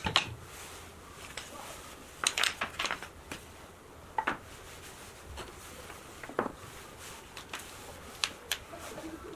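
Wooden model-airplane parts being handled and set down on a workbench: scattered light knocks and clicks of wood on wood and on the bench top, coming at irregular moments, with a cluster about two seconds in.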